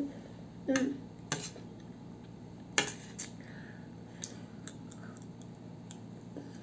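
Metal spoon clinking and scraping against a plate as food is scooped up. There are a few sharp clinks, the loudest about three seconds in, and lighter ticks near the end.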